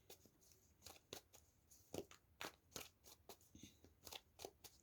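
Faint rustling and light clicking of tarot cards being handled and straightened on a table, about a dozen small scattered taps.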